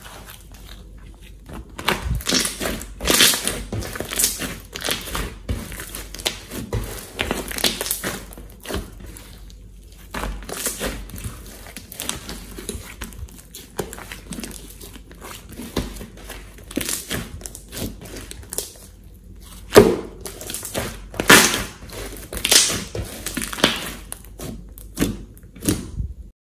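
Hands squeezing, stretching and poking a large pink slime, making irregular wet squelching and crackling sounds. Louder, sharper squelches bunch up about three-quarters of the way through.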